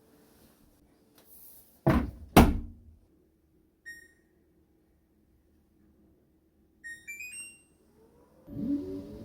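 An LG WashTower: its door is shut with two heavy thuds, then a single beep and a short rising run of electronic beeps sound as it is set going. Near the end its drum motor starts with a low rumble.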